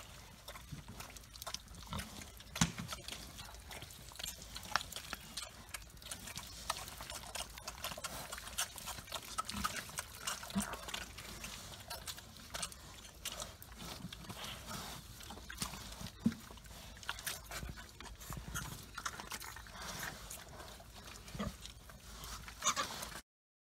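Pigs grunting and slurping water at a nipple drinker, with many short, irregular clicks.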